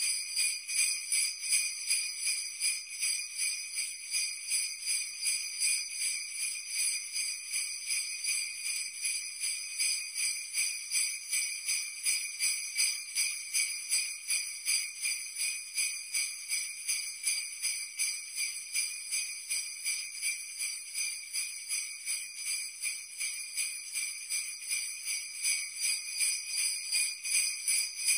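Sleigh bells jingling, shaken in a steady even rhythm of about three shakes a second; the sound is bright and high-pitched with little low end.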